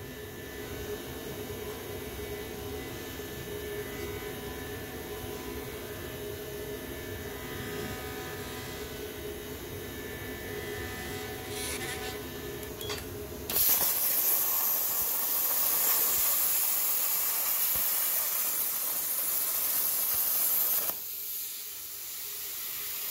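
A plasma cutter torch fires and cuts steel sheet: a loud, steady hiss of the air arc starts suddenly about halfway through, stops sharply near the end, then starts again. Before it, a steady mechanical hum with several steady tones runs on.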